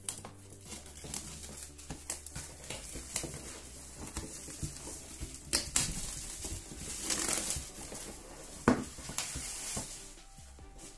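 Plastic shrink wrap being slit and pulled off a cardboard board-game box, crinkling and crackling, with the light knocks of the box being handled. A sharp knock comes just before the end.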